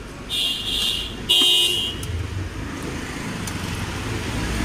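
Two high-pitched vehicle horn blasts, one right after the other, each a little under a second long, then a steady low rumble of street traffic and engines.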